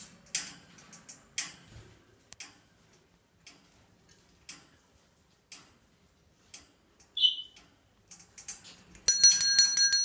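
Soft, even ticks about once a second, a single short high chirp about seven seconds in, then from about nine seconds a small bell rung rapidly with many quick strikes, the loudest sound.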